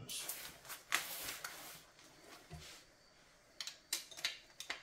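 Quiet clicks and clinks of a hand wrench and loosened bolts being handled on a transmission case, with a scuffing rustle over the first couple of seconds, a lull, then a few more clicks near the end.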